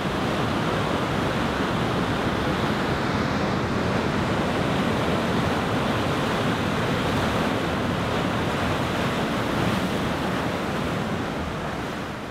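Steady rushing ambience of surf and wind, beginning to fade out near the end.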